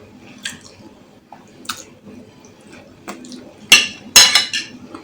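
Cutlery clinking and scraping against a dish while eating: a few light taps, then two loud clinks with a short ring about four seconds in.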